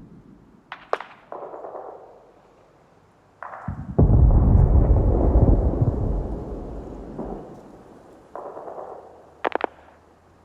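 Battle soundscape of gunfire and artillery: a couple of sharp gunshot cracks about a second in, a heavy explosion about four seconds in with a long rumbling decay, scattered duller distant shots, and a quick burst of three cracks near the end.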